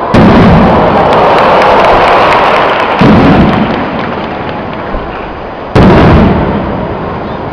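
Aerial firework shells bursting overhead three times, about three seconds apart. Each bang rolls away slowly in a long echo, and fine crackling follows the first.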